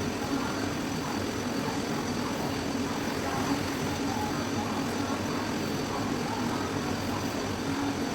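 A steady machine drone with a low hum, unchanging throughout.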